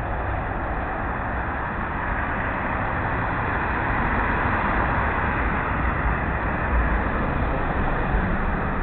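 Steady rushing noise with irregular low thumps from a small camera being carried along a street.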